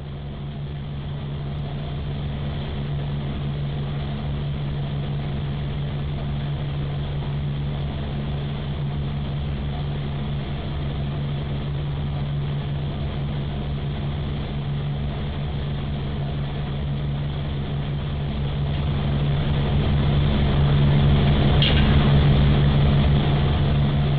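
Metal lathe running while a center drill bores into the end of a spinning metal rod, played back about five times slower, so it comes out as a deep, steady drone. It grows louder near the end as the wobbling bit's tip breaks off from metal fatigue, the end of the rod not having been faced first.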